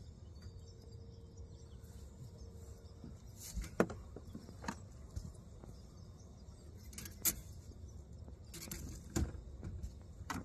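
Fishing gear being handled in a boat: a few sharp knocks and clicks, the loudest about four and seven seconds in, over a low steady rumble, with a faint steady hum for a few seconds near the start.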